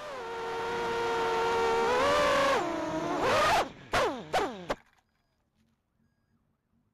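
Electric motors of a GEPRC Skip HD 3 FPV quadcopter whining at a steady pitch, with a couple of brief rises as the throttle changes. Then come three quick falling sweeps as the motors spin down, and the whine stops about five seconds in.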